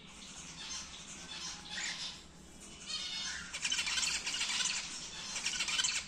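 Cockatiels giving harsh, raspy calls, scattered at first and then louder and almost unbroken from about halfway through.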